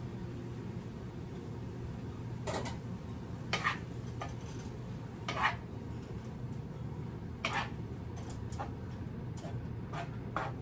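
Wooden spatula scraping and knocking against a skillet as shrimp and crawfish are stirred, in short strokes spaced a second or two apart.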